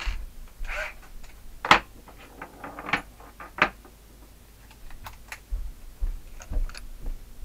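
Scattered clicks, taps and knocks of hand tools and small parts being handled, with a few short rustles; the loudest, sharpest knock comes nearly two seconds in.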